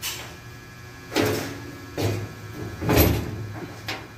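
Metal-on-metal knocks on the steel door hinge of an electrical panel board enclosure, a hinge pin being driven with a hand tool: five sharp taps about a second apart, the loudest about three seconds in, each with a short ring.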